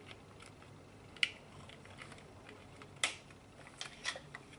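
Scattered light clicks and taps of plastic wiring connectors and cable being handled inside a motorcycle headlight shell. The sharpest click comes about a second in and another about three seconds in, with a short cluster of clicks near the end.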